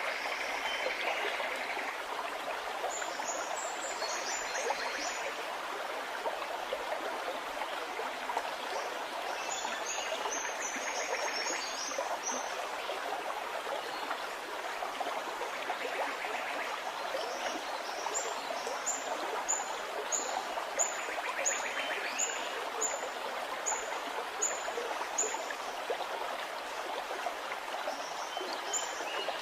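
Small stream gurgling and running steadily, with songbirds calling high above it in short bursts. Through the middle, one bird repeats a short, high note nearly twice a second for several seconds.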